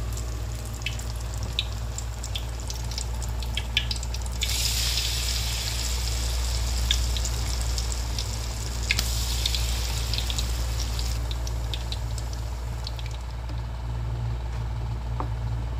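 Batter-coated tempeh deep-frying in hot oil in a wok: a steady sizzle with scattered pops and crackles, the hiss strongest from about four to eleven seconds in. A steady low hum runs underneath.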